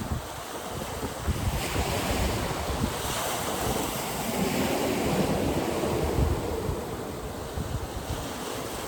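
Surf breaking on a beach in strong wind, with gusts buffeting the microphone; the wash swells up a little in the middle.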